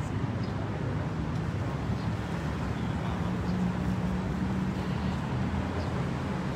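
Steady low hum of a running engine, its pitch holding level and swelling slightly partway through, over faint street noise.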